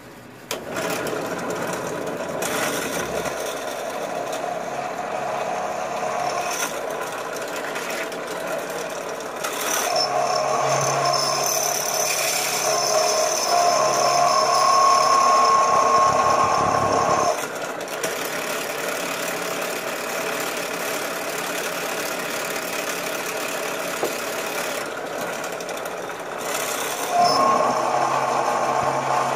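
Electric drill running under load, its bit boring into a copper bar. The motor starts about half a second in, grows louder through the middle, drops back a little, and rises again near the end.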